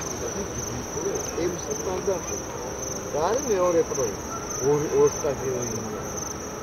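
Crickets trilling steadily, with shouting voices from players on the pitch, loudest about three to five seconds in.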